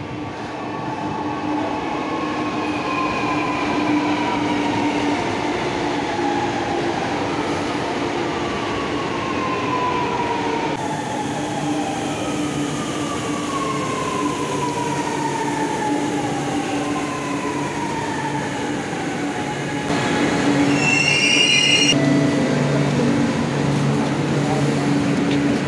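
Chennai Metro electric train pulling into the station, its motor whine falling in pitch again and again as it slows, over a steady low hum. About twenty seconds in comes a brief high squeal.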